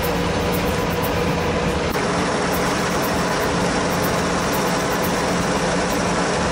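Heavy off-road truck engine running steadily with an even hum.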